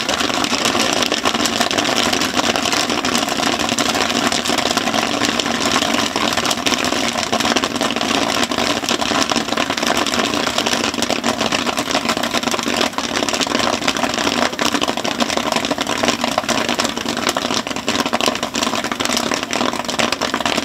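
Commercial popcorn machine running as its kettle tips out fresh popcorn: a steady, dense crackle and patter of popcorn over a constant machine hum.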